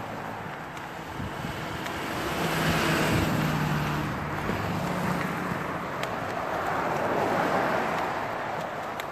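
Cars passing close by on a road: one goes by with its engine note about a third of the way in, and another swells past near the end.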